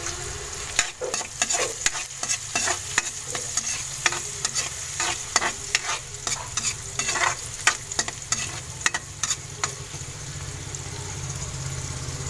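Metal spatula scraping and clinking against a wok while garlic and onion are stirred in sizzling oil, with rapid irregular clicks. The stirring stops about ten seconds in, leaving only the steady sizzle.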